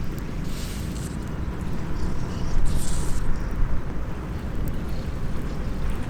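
Small wood fire crackling in a compact steel fire stand, with a few brief sharp crackles about half a second in and near three seconds in, over a steady low rumble.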